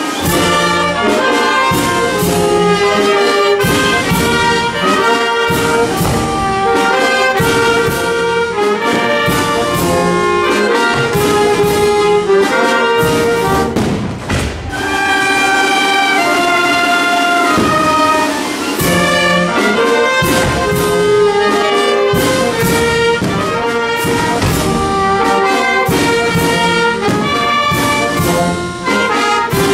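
A wind band of trumpets, clarinets, saxophone, trombones and low brass playing a piece together, loud and continuous, with a short dip about halfway through.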